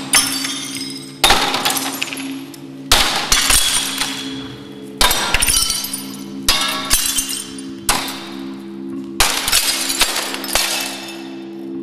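A hanging glass sculpture made of sheets of glass is struck again and again with a rod, about eight blows roughly a second and a half apart. Each blow cracks the glass with a sharp crack, followed by tinkling and crackling.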